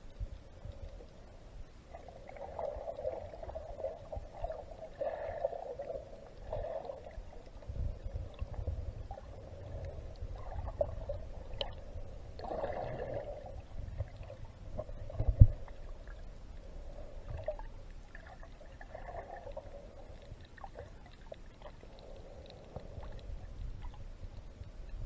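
Muffled water sloshing and gurgling around a snorkeling camera in its waterproof housing, rising and falling in uneven swells over a low rumble. A single sharp knock comes about fifteen seconds in.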